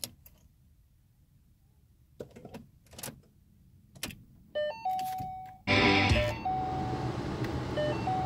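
A few clicks, then the dashboard's electronic warning chime, and about six seconds in the 2014 Mustang's 3.7-litre V6 cranks and starts with a loud flare before settling into a steady idle while the chime keeps sounding.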